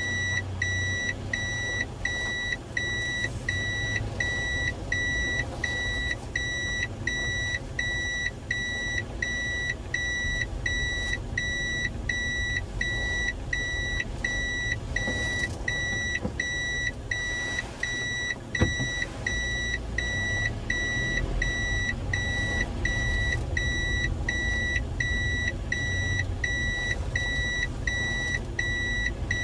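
A car's in-cabin reverse warning buzzer beeps at an even, quick rate over the low hum of the engine: the car is in reverse and backing slowly along the road. A single sharp knock comes about two-thirds of the way through.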